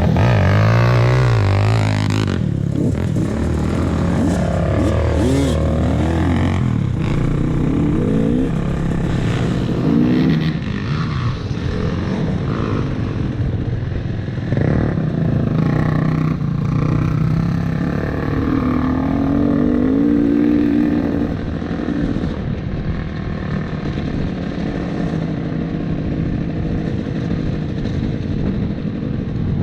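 KTM 300 TPI two-stroke dirt bike engine being ridden off-road, revving up and down repeatedly through the first ten seconds or so, then running steadier with a few smaller rises in pitch.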